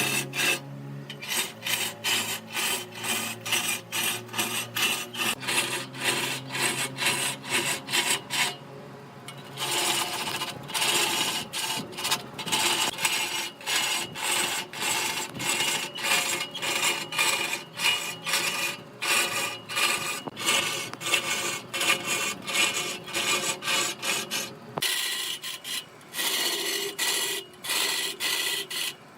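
Wood being worked with repeated rasping, scraping strokes, about two to three a second, with a couple of short pauses. A faint steady hum of a lathe motor runs under the strokes until near the end.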